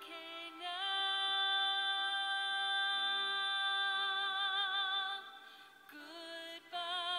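Background music: a high female voice holds one long note for about four seconds, wavering near its end, over a soft lower accompaniment, then moves on to shorter notes near the end.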